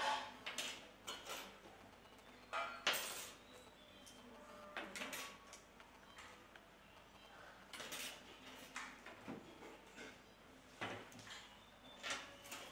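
Small brass fittings clinking and clicking as they are handled and fitted together by hand: scattered light metallic taps, the loudest about three seconds in.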